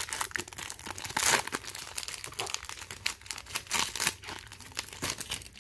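Plastic wrapper of a baseball card pack crinkling and tearing as it is ripped open by hand: a dense run of sharp crackles, loudest about a second in.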